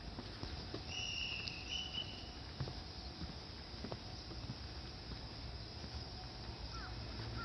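Quiet outdoor ambience at a small railway level crossing, with faint scattered ticks and steps. A brief high squeak comes about a second in, and a few short chirps come near the end.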